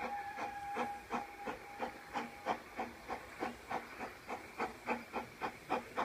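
Narrow-gauge steam locomotive approaching, its exhaust beating in short, even chuffs about three times a second.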